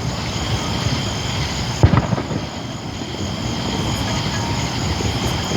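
Night-time outdoor ambience: a steady low rumble with a steady thin high chirring of insects, and one sharp pop about two seconds in from a distant firework.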